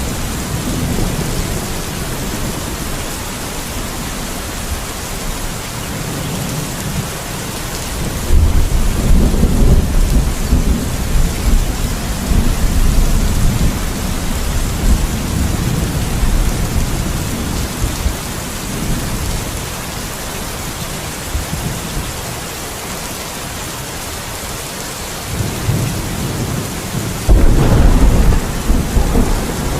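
Steady rain with thunder rumbling: a long roll of thunder starts about a quarter of the way in and lasts several seconds, and another loud rumble comes near the end.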